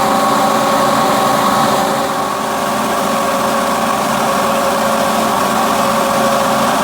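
Tractor engine running steadily, with a level mechanical hum and whine.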